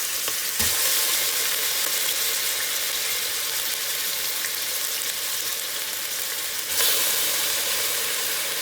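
Chicken frying in hot oil in a pressure cooker: a steady sizzle that flares louder suddenly twice, about half a second in and again near seven seconds, with a low thump at the first flare.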